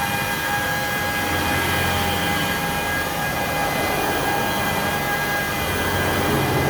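A machine running steadily, with a constant whine over a noisy hiss.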